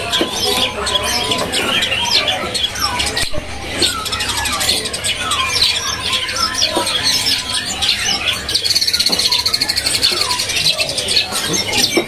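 Many caged small songbirds chirping and singing at once, with overlapping short calls and whistles; one bird gives a fast, even trill about nine seconds in.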